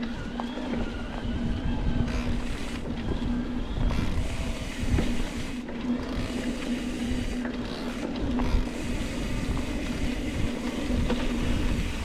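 Mountain bike descending a rough downhill trail at speed: wind rushing over the bike-mounted camera's microphone, the bike rattling and knocking over bumps, with a steady hum underneath.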